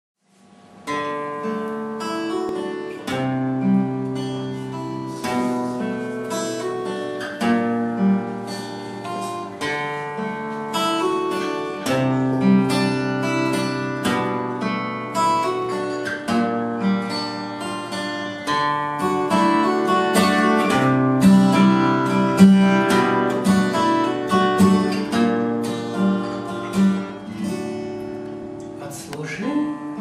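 Acoustic guitar played solo, picked notes over a changing bass line in an instrumental introduction, starting about a second in.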